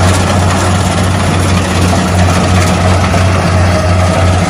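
A small tracked rice combine harvester's engine runs steadily at working speed, a loud, even low hum with a faint steady whine above it, as the machine cuts and threshes rice.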